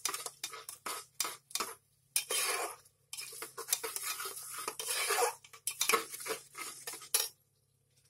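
Metal spatula scraping and knocking against the sides and bottom of an aluminium pressure cooker, stirring a thick masala with yogurt in quick, repeated strokes. The stirring stops near the end.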